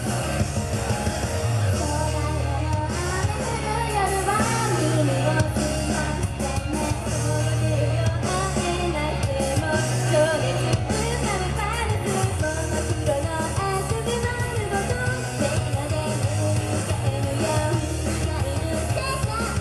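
Live J-pop idol song: singing over a loud rock backing with guitar and a heavy, pulsing bass.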